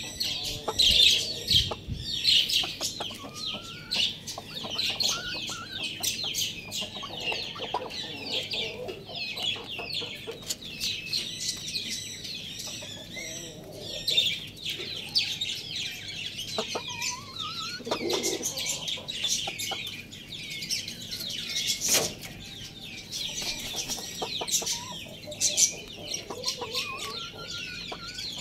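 Chickens clucking in a coop, over a constant chatter of many short, high-pitched chirps. A few short rising calls stand out here and there, and a lower call comes a little past the middle.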